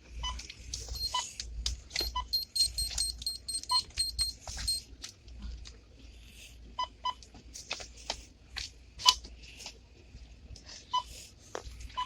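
Checkout barcode scanner beeping as items are scanned, about eight single beeps spread irregularly. A faster run of higher-pitched beeps from about a second in to near the five-second mark, with light knocks and clatter of cans being handled.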